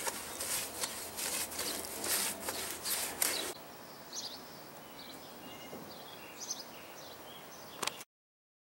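A paintbrush scrubbing stucco paint onto a rough stucco wall in quick, scratchy strokes, about three a second. After about three and a half seconds the brushing stops, leaving faint outdoor air with a few short bird chirps, and the sound cuts out just before the end.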